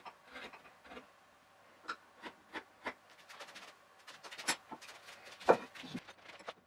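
Sped-up workshop sounds: irregular clicks and knocks of the wooden parts of a dry-assembled bench frame being handled, with one louder knock a little past halfway.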